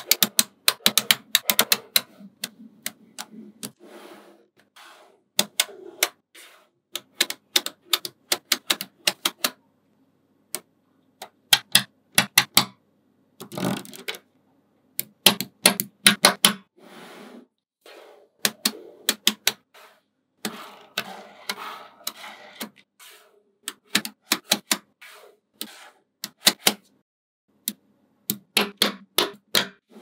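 Small magnetic balls clicking sharply as hand-placed cubes and rows of them snap together, in quick runs of clicks broken by short pauses, with a softer rattle of balls shifting against each other partway through.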